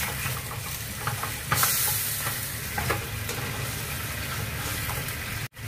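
Pork feet sizzling in a frying pan while a slotted spatula stirs them through soy and oyster sauce, with scattered scrapes and taps of the spatula on the pan. The sound drops out for an instant near the end.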